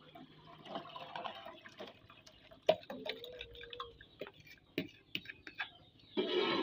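Liquid pudding mixture pouring from an aluminium bowl into a saucepan, with a metal spoon scraping the bowl and clinking against it several times, the sharpest clink about two and a half seconds in.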